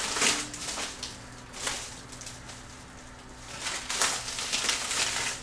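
Paper and packaging rustling and crinkling in short bursts as letters and packets are pulled out of an opened shipping package: once at the start, again about a second and a half in, and a longer stretch near the end.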